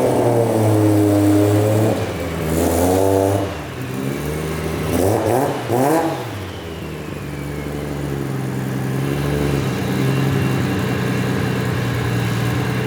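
Toyota Chaser's 1JZ straight-six running, its revs rising and falling, with two swells about two to three and five to six seconds in.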